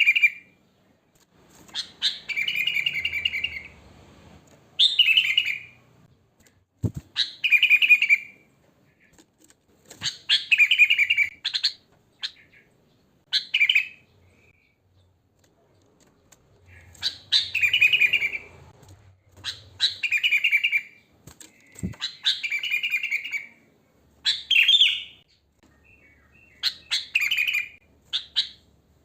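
Sooty-headed bulbul singing its short, bubbly, liquid phrases over and over, one every two to three seconds, with a pause of a few seconds about halfway through.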